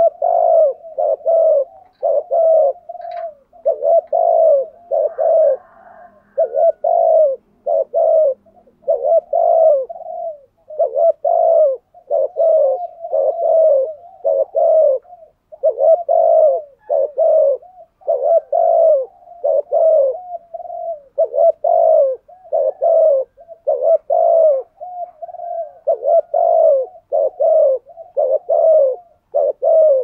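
Spotted dove cooing in a fast, unbroken run of short coos, about one and a half a second. This is the rapid 'thúc gù' cooing of a decoy dove, meant to provoke wild doves into answering.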